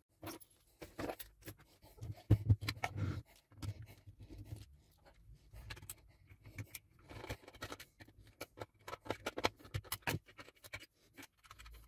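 Handling noise as a soldering station is taken apart on the bench: irregular clicks, scrapes and light knocks of metal parts and tools, with a few heavier knocks about two to three seconds in and denser clicking near the end.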